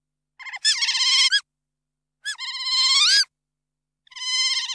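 Otter vocalizing: three high-pitched, warbling squeals of about a second each, each bending upward in pitch near its end.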